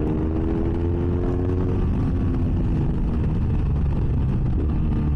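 BMW F800S's Rotax parallel-twin engine running under way through an open GPR Furore exhaust with the dB-killer removed, heard from inside the rider's helmet. Its pitch climbs a little over the first couple of seconds, then eases off into a steady low drone.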